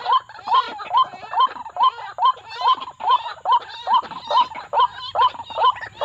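White-breasted waterhen calling, a fast, regular string of short, hooked "kruak" notes, about two and a half a second without a break.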